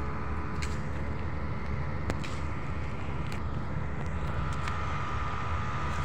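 Steady low rumble of distant road traffic, with a faint steady high tone above it and a few light clicks.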